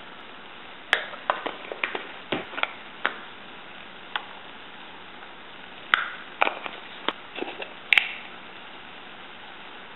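A spoon clinking and tapping against a stainless steel pan in two clusters of sharp clicks, about a second in and again around six to eight seconds, as spoonfuls of ground spice are tipped in.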